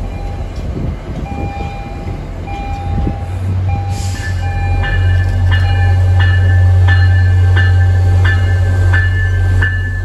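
Diesel passenger locomotive drawing near on the station track, its deep engine hum swelling about four seconds in, while its bell rings steadily about twice a second.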